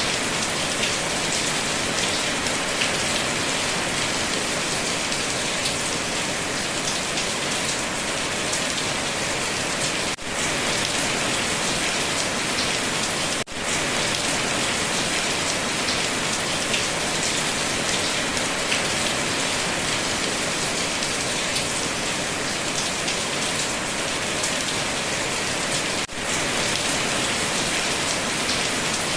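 Steady rain falling, a dense even patter of raindrops. It dips briefly three times, about 10, 13 and 26 seconds in.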